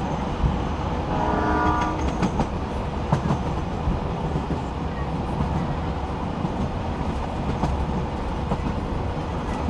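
Passenger train heard from on board while moving: a steady low rumble of the wheels on the rails with scattered clicks. About a second in, the locomotive horn sounds once for about a second.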